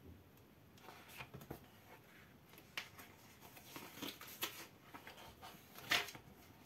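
Pages of a thick softcover comic book being flipped by hand: a run of faint paper rustles and flicks, the loudest near the end.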